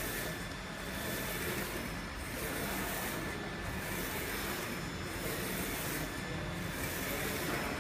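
2513 UV flatbed printer running: the print-head carriage shuttles back and forth across the bed with a steady mechanical whir that swells and dips regularly, about once every second and a half, as it makes each pass. A faint steady whine sits over it.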